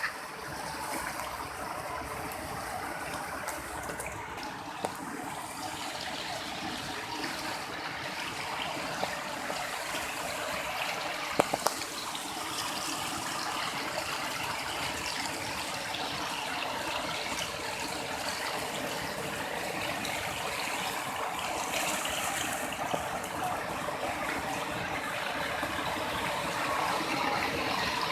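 Floodwater flowing in a steady rush, with a few short clicks about eleven seconds in.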